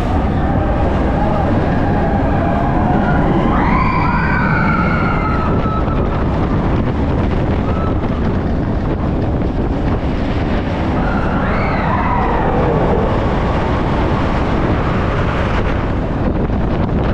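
Vekoma steel roller coaster train running at speed on Expedition Everest: a steady rush of wind on the microphone and wheels rumbling on the track. Riders scream and whoop twice, a few seconds in and again about two-thirds of the way through.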